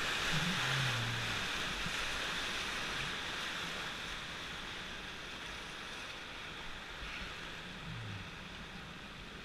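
Rushing, splashing whitewater of a class III river rapid churning around a raft, fading as the raft moves into calmer water.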